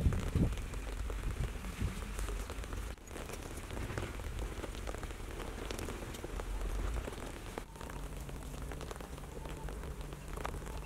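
Rain pattering: a steady hiss full of small scattered ticks, with a low rumble underneath.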